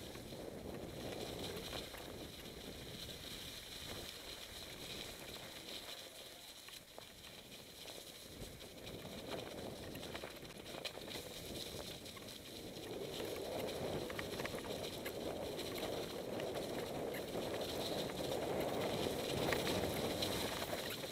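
Mountain bikes rolling downhill on a dirt trail covered in dry leaves: tyres rustling through the leaves, with small rattles and clicks as the bikes go over bumps. It gets louder from about halfway through.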